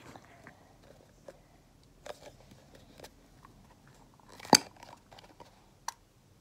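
Scattered small clicks and taps from handling a plastic glue bottle while pouring glue into a bowl, with one sharper knock about four and a half seconds in.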